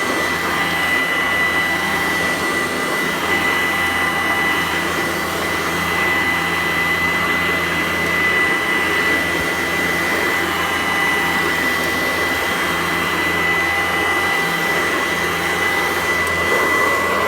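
Sanitaire SC886 upright vacuum cleaner running steadily over carpet, a constant motor drone with a steady high-pitched whine.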